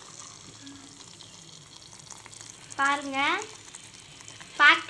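A ladle stirs thick, sticky jaggery sweet rice in an aluminium pot as it cooks on the stove, giving a faint, steady sound of wet stirring and sizzling. A voice sounds briefly about three seconds in and again just before the end.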